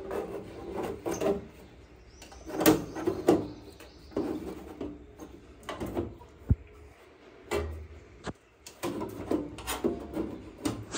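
Front cover panel of a Fronus solar inverter being fitted back on and screwed down: irregular knocks, clicks and scrapes as it is lined up, the sharpest knock about two and a half seconds in.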